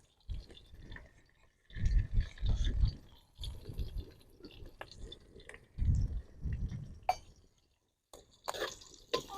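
Tempering spices and dried red chillies frying in hot oil in a kadai while being stirred with a ladle: a faint sizzle with scrapes and clicks, a sharp clink about seven seconds in. Low thumps come twice, about two to three seconds in and six to seven seconds in.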